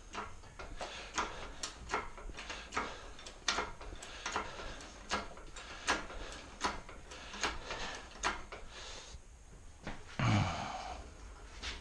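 Hand-pumped hydraulic engine hoist being worked stroke by stroke, a sharp mechanical click with each pump, roughly one or two a second, as it lifts an engine out of a Jeep. About ten seconds in there is a short, louder sound whose low pitch falls.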